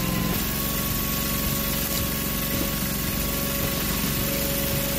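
Engine-driven hydraulic firewood splitter running steadily, with a thin steady whine over the engine note.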